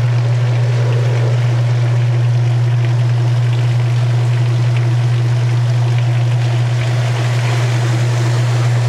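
1986 Kenmore 60 Series direct-drive washer in its spin cycle: a steady motor hum under the rush of water being pumped out through the drain.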